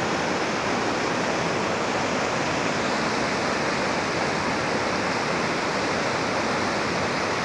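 Fast mountain river rushing over rocks, a steady, even wash of white-water noise.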